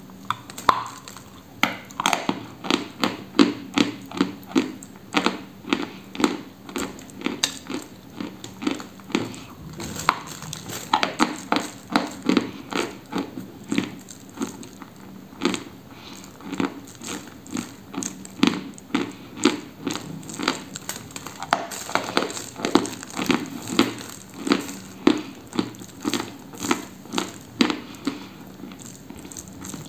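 Close-up crisp crunching of a dry block of white eating chalk being bitten and chewed, with sharp crunches coming several times a second.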